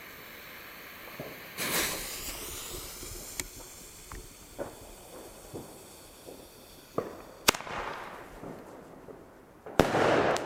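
Consumer bombette firework tube (Albert "Glamour Shots", pink) firing: it launches with a rushing whoosh about two seconds in, gives a sharp crack a little before the end, and bursts with a loud bang near the end.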